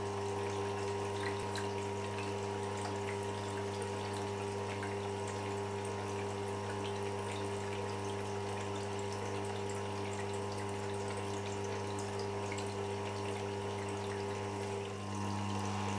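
Tormek T-8 wet sharpening machine running, its electric motor giving a steady hum while the grinding stone turns through its water trough with a wet swish and faint ticks. The hum shifts slightly near the end.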